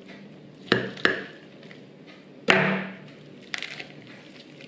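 A knife cutting through the crisp skin of a whole roast duck and the bird being broken apart by hand: several sharp cracks and crunches, the loudest about two and a half seconds in.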